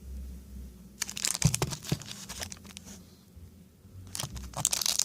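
Trading card pack wrapper crinkling as it is handled and turned over, in two spells of crackly rustling, about a second in and again near the end.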